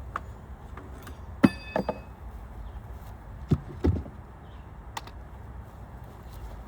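Beehive equipment being handled: a series of knocks and clunks as parts are set in place on the hive, the loudest about one and a half seconds in with a short ringing clink, then more knocks a few seconds later.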